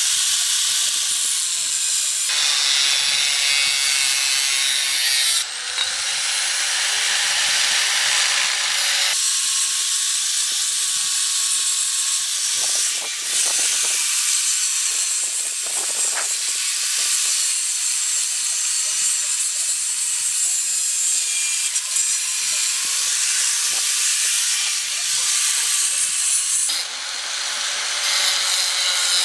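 Power tool cutting metal on a grill frame part: a loud, steady hissing grind with a faint motor tone that sags and recovers under load, with short breaks about 5 s, 13 s and 27 s in.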